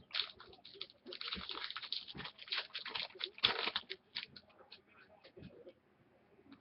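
Sports card packaging and cards being handled and opened: crinkling and rustling with many sharp clicks, densest in the first four seconds, then a few scattered light clicks.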